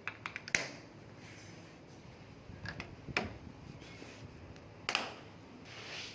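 Plastic car roof molding being pressed down onto its clips: scattered short clicks and light knocks, the loudest about five seconds in.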